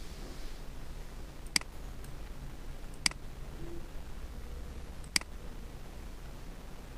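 Three separate computer mouse clicks, sharp and brief, spaced about one and a half to two seconds apart, over a low steady background hum.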